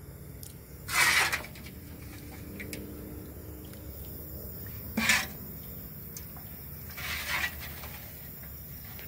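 A metal ladle stirring curry broth in a large metal wok, scraping against the pan in three short strokes, over a low steady hum.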